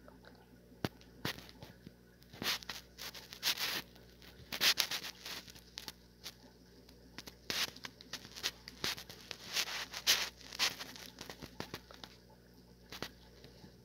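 Paper packaging being handled and torn open: irregular bursts of crinkling and tearing with a few sharp clicks, busiest in the middle and dying down near the end.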